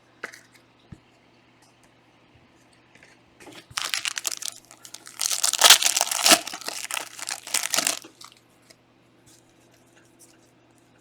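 Trading-card pack wrapper of 2019-20 Panini Prizm Premier League being torn open and crumpled: a few seconds of dense crinkling and tearing starting about three and a half seconds in, loudest near the middle.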